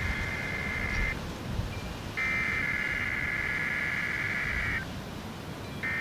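Emergency Alert System header: the digital SAME data bursts that open a National Weather Service alert, a harsh buzzing two-tone warble near 2 kHz. One burst ends about a second in, a second runs for about two and a half seconds, and a third begins near the end.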